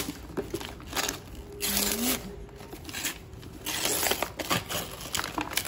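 Gift-wrapping paper and tissue paper being torn and crinkled off a boxed jigsaw puzzle, in several irregular rustling bursts. A short low hum about two seconds in.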